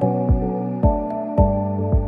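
Background music: a steady low beat, just under two strokes a second, under sustained chords.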